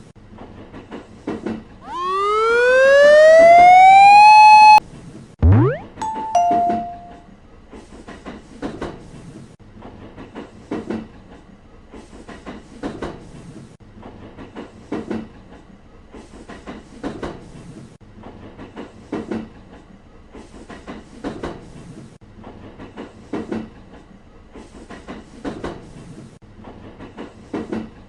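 Cartoon sound effects: a tone rising in pitch for about three seconds that cuts off abruptly, a quick upward swoosh, and a two-note ding-dong chime. From about eight seconds in, train wheels clatter over rail joints in a steady repeating rhythm.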